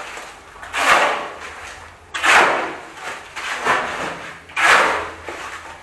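Steel shovel scraping and scooping through a pile of wet concrete mix on the floor, hand-mixing the concrete. There is one gritty stroke about every one and a half seconds.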